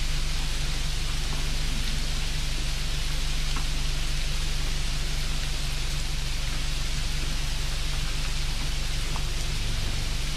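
Steady, even hiss with a low, steady hum underneath, unchanging throughout.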